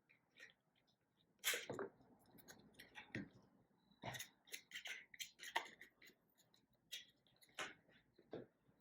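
Faint rustles and taps of cardstock being handled and pressed down while being glued: a string of short, scattered noises, the loudest about a second and a half in.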